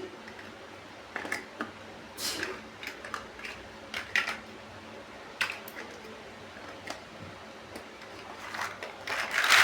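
Plastic building bricks clicking and knocking as they are handled and pressed together, in irregular single clicks, with a louder rattle of pieces near the end.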